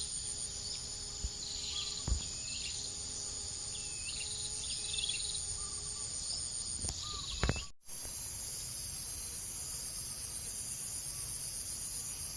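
Insects chirping in a steady, high-pitched pulsing trill, with short bird chirps over it in the first half and a couple of sharp knocks. The sound cuts out for a moment about two-thirds of the way through, then the insect chorus resumes.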